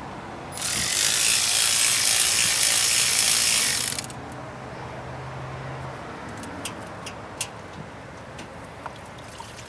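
Ratchet wrench clicking in a fast, continuous run for about three and a half seconds while a bolt is backed out, then a few faint single clicks.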